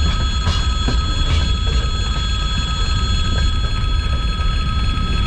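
Freight train of open-top gondola wagons rolling steadily past close by: a heavy, continuous rumble of wheels on rail with steady high-pitched tones held over it and a few faint clicks early in the pass.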